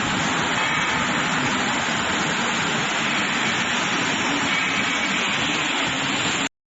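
Steady industrial noise, a dense even rush with faint steady tones in it, from a steel bar induction quenching and tempering line running. It cuts off suddenly near the end.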